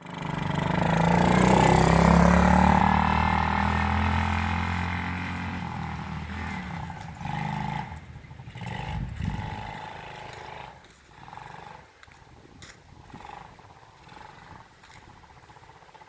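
ATV engine running close by, loudest about two seconds in, then fading steadily as the quad moves away.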